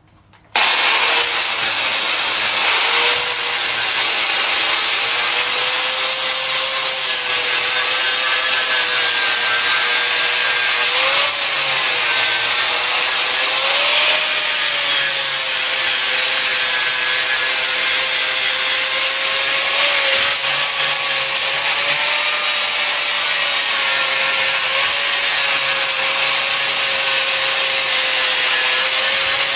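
Electric angle grinder with a flap disc starting up about half a second in and then running steadily, grinding paint and rust off a thick steel plate. Its motor whine dips and wavers a little as the disc bears on the metal.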